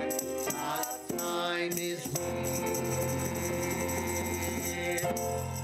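Closing hymn at the end of a church service, singing with instrumental accompaniment. The melody moves for about the first two seconds, then settles into a long held final chord.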